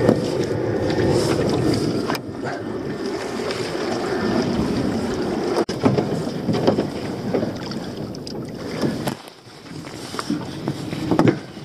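Wet pot rope being hauled in hand over hand over the side of a small dinghy and dropped into a coil, with rasping pulls that come as separate strokes in the later seconds, over steady wind and sea noise.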